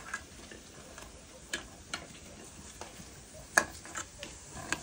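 Green plantain pieces frying in a pan of oil, a steady sizzle with several sharp clicks over it, the loudest about three and a half seconds in.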